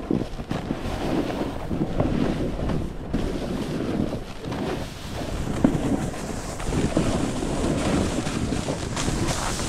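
Wind buffeting the action camera's microphone as a snowboard runs downhill, with the rushing hiss and scrape of the board's edges over chopped-up snow. The noise swells and eases with the turns.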